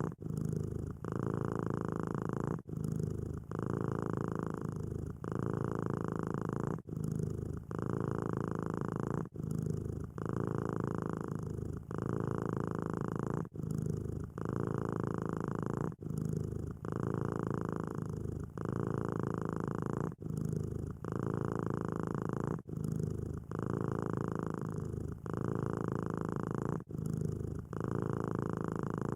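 Domestic cat purring steadily in an even rhythm, breaking briefly about every one to two seconds.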